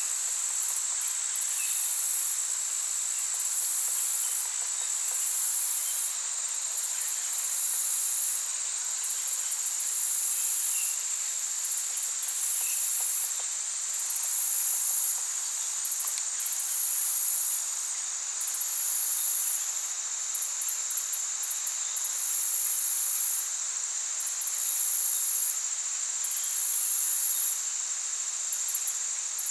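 Chorus of insects, crickets or the like, trilling: a steady high-pitched trill with a second, even higher trill coming in bursts of about a second, roughly every two seconds, over a faint steady hiss.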